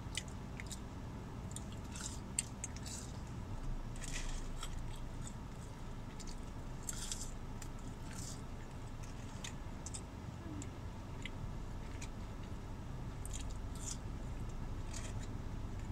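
Close-up eating sounds: a person chewing and biting french fries, with scattered short mouth clicks over a steady low hum.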